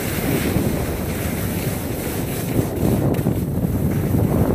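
Wind buffeting a hand-held phone's microphone as the skier glides downhill, mixed with the hiss of skis sliding over packed snow.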